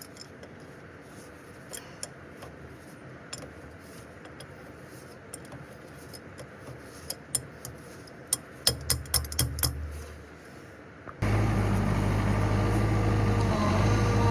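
Scattered light metallic clicks and knocks of tools being handled, coming thicker near the middle. Then, about eleven seconds in, a machine engine running steadily cuts in suddenly and keeps going much louder.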